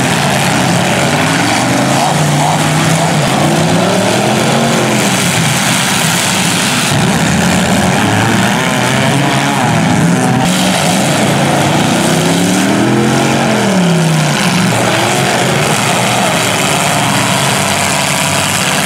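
Demolition derby car engines revving hard, their pitch rising and falling again and again over a dense, loud din.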